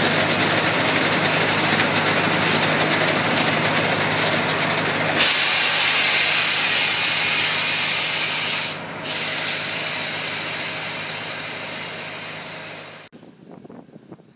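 Diesel railcar engine idling, then a loud hiss of air starting suddenly about five seconds in, dropping out briefly near nine seconds and slowly fading. The sound cuts off abruptly near the end, leaving a much quieter rumble.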